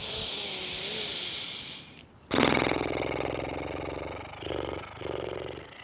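A woman's breathing: a long breath in through the nose, then a horse-lips exhale, the lips fluttering in a loud, rapid buzz that fades and breaks into two shorter fluttering puffs near the end.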